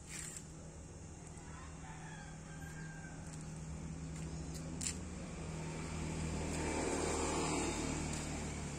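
A motor vehicle approaching and passing, with a low steady hum growing louder and peaking near the end. Earlier, a rooster crows faintly in the background, and there are a couple of short clicks.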